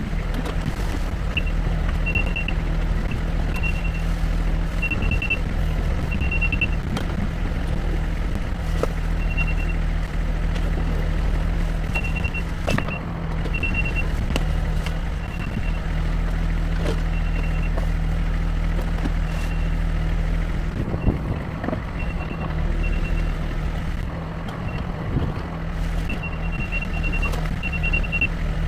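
Diesel digging machine running steadily while working, its backup alarm beeping in short runs that start and stop again and again as it reverses, with a few knocks of the work.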